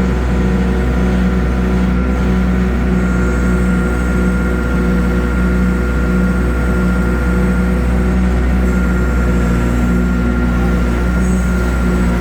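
An engine running steadily, an even hum with a slight pulse about once a second.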